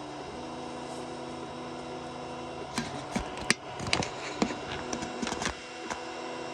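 Biqu BX 3D printer printing, its stepper motors whining at pitches that shift every half second or so over a steady fan hum. From about three seconds in, a run of sharp clicks and rattles joins in.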